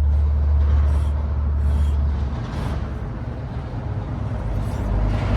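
Road traffic rumbling on the highway bridge overhead: a steady low drone that loosens about two seconds in, with the hiss of passing vehicles growing louder near the end.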